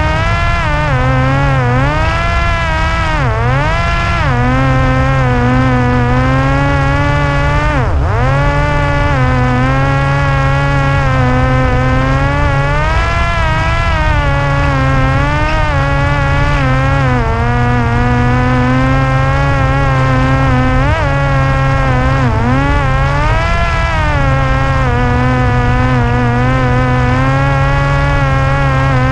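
Parrot Disco's rear electric pusher motor and propeller running in flight with a steady buzzing whine, its pitch dipping and climbing again several times as the throttle changes, most sharply about eight seconds in, over a low rumble.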